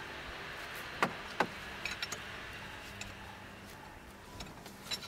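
Steady faint hiss with a few light metallic clicks, two sharp ones about half a second apart about a second in and softer ticks later, from the new timing chain tensioner being threaded into a BMW N42 engine block and a 27 mm ring spanner being fitted onto it.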